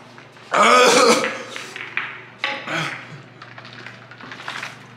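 A man's loud pained cry about half a second in, then shorter groans, from the burn of an extremely hot chili chip. In the second half come small clicks and knocks as he drinks from a large plastic water jug.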